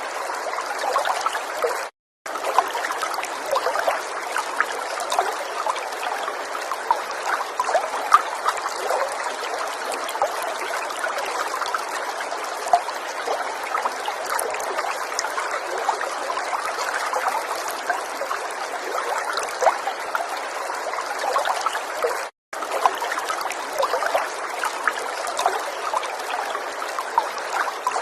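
River water flowing and trickling steadily, with many small splashes. The sound cuts out to silence for a split second twice: about two seconds in and again after about twenty-two seconds.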